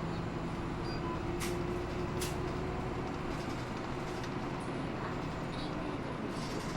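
Cabin sound of a Hino Blue Ribbon II city bus running: steady diesel engine hum and road noise. Two brief clicks or rattles come early on, about a second apart.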